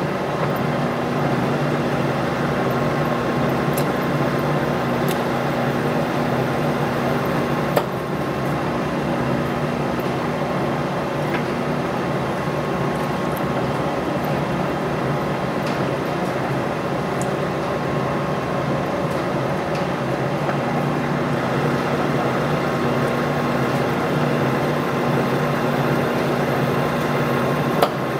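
Monarch engine lathe running steadily with a gear hum while a single-point tool takes a thread-cutting pass in a steel shaft. A sharp click comes about 8 seconds in and another near the end.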